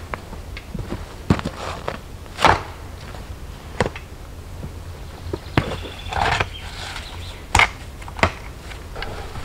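Stones being handled and set in a dry stone wall: irregular knocks and clacks of stone on stone, the loudest about two and a half seconds in and near the end, with a brief scrape about six seconds in.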